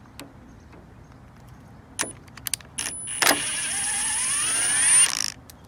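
Cordless drill backing a screw out of the corner of an aluminium window frame. A few clicks come as the bit is set in the screw, then the motor runs for about two seconds with a whine that rises in pitch, and stops.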